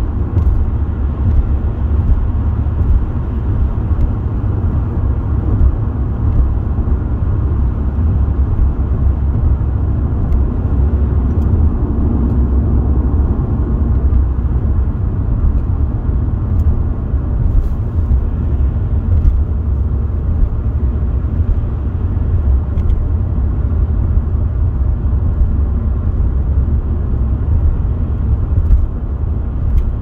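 Car driving at highway speed, heard from inside the cabin: a steady, deep rumble of road and engine noise.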